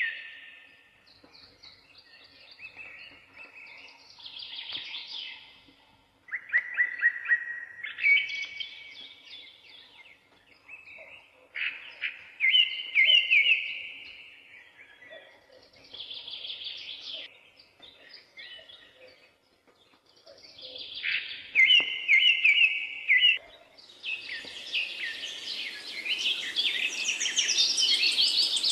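A songbird singing in repeated short phrases of quick chirps and trills. Near the end a steady sizzling hiss comes in, from minced meat frying in a pot.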